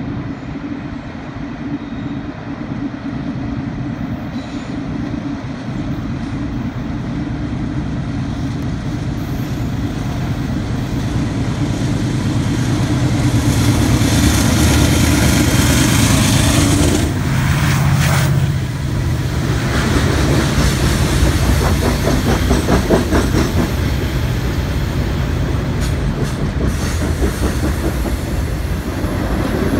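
Freight train's diesel locomotives running as they approach and pass close below, their engine drone growing louder over the first half. The freight cars then roll past with a rhythmic clickety-clack of wheels on the rails.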